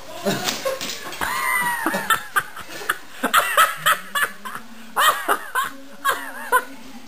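People laughing, with high-pitched hoots and squeals in quick short bursts starting about a second in.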